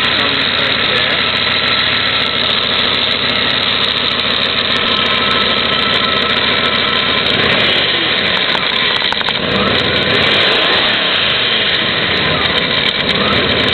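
1994 Jeep Grand Cherokee's 5.2-litre (318) V8 running at idle, close up under the hood. About halfway through, the engine speed rises and falls for a few seconds before settling back to a steady idle.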